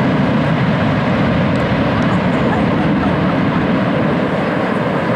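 Boeing 757 jet airliner's engines running loud and steady as it rolls out on the runway just after touchdown, a deep even rumble.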